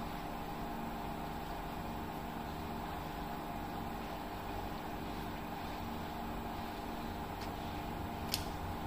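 Steady machine-like hum with several fixed low tones under an even noise, and a single sharp click near the end.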